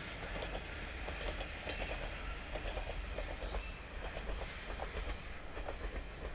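Two-car set of JNR KiHa 40 diesel railcars running along the line, with a low rumble and a quick, irregular run of wheel clicks and clacks on the rails.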